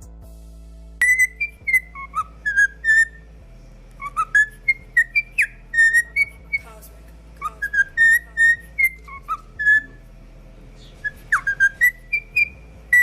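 A songbird singing clear, whistled phrases that slide up and down in pitch, in four bursts of song separated by short pauses.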